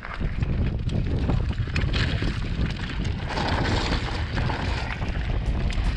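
Wind buffeting the action camera's microphone as a mountain bike rolls down a loose rocky gravel trail, tyres crunching over stones and the bike rattling. The rumble and rattle jump up right at the start, as the bike sets off.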